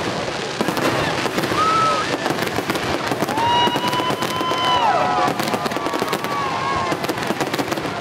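Aerial fireworks bursting overhead: a dense, continuous run of crackling and bangs, with a few long high tones that hold and then bend down near the middle.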